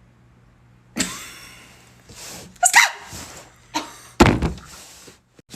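A person making a series of random noises with the mouth and voice: several breathy, blowing blasts and a short high squeal in the middle.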